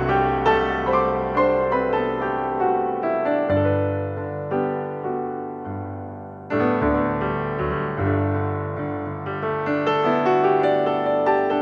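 Background piano music, gentle notes over sustained bass; it thins and softens midway, then comes back fuller about six and a half seconds in.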